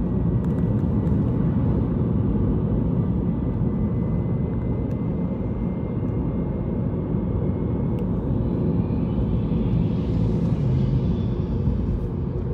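Steady rumble of a car driving at road speed: engine and tyre noise.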